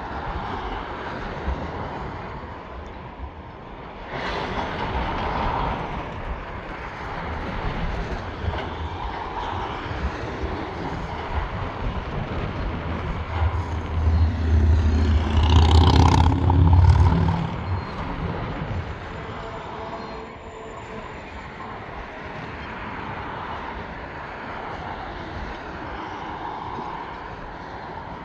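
Road traffic passing on the road. About halfway through, a heavy diesel vehicle is loudest for a few seconds, its low engine drone swelling and then fading.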